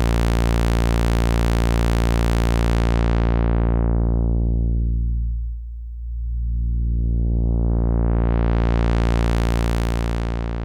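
Moog Werkstatt-01 analog synthesizer holding one steady low droning note while its low-pass filter cutoff knob is swept. The tone closes down to a dull, muffled hum about halfway through, opens back up to bright and buzzy, and starts closing again near the end.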